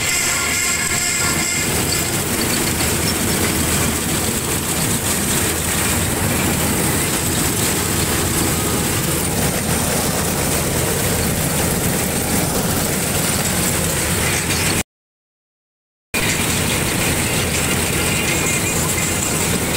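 Combine harvester running steadily while cutting paddy: a dense, unbroken engine and machinery noise heard from the open driver's seat. It cuts out to silence for about a second near the end, then the same steady noise resumes.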